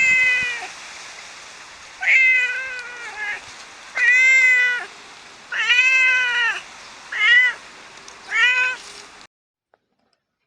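A domestic cat meowing repeatedly: about six drawn-out meows, spaced a second or two apart. The sound cuts off abruptly about nine seconds in.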